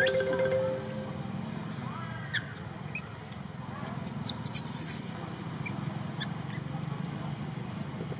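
Infant long-tailed macaque squealing in high, thin cries: a brief squeal at the start and a louder cluster of squeals about four seconds in, over a steady low background hum.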